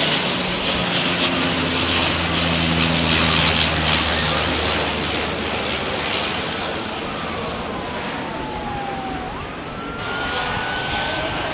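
Bombardier CL-415 water bomber's twin turboprop engines droning in flight. A steady low hum fades after the first few seconds, and in the second half a thin tone slides down, then jumps back up.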